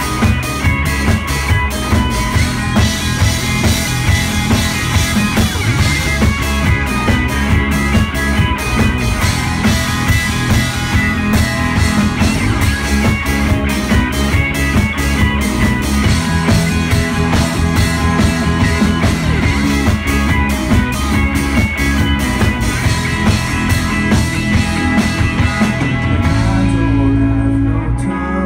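Live indie rock band playing loudly: two electric guitars, electric bass and a drum kit keeping a steady beat. Near the end the drums stop and a held chord rings on.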